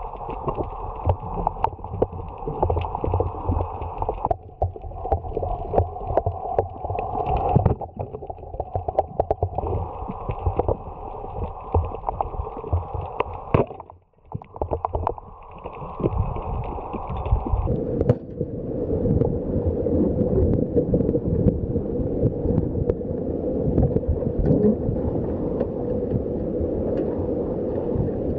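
Muffled underwater sound through a camera housing, water noise with scattered crackling clicks. After about eighteen seconds it changes to a steady rush of wind and sea on an open boat.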